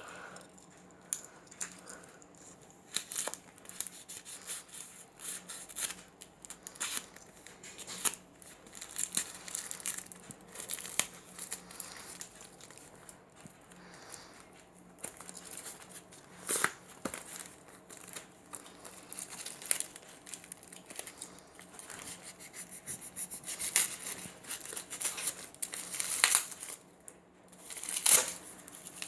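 Speed-cube packaging being unwrapped: irregular crinkling and tearing of plastic wrap and packaging, with a few sharper crackles near the end.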